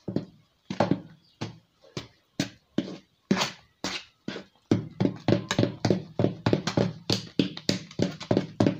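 Spatula beating butter and sugar by hand in a mixing bowl: rhythmic scraping, slapping strokes, about two a second, quickening to about three a second partway through.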